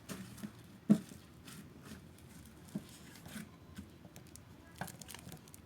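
Quiet handling of slime and soft clay by hand: faint sticky clicks and soft squishes, with one sharper tap about a second in and a few lighter ones later.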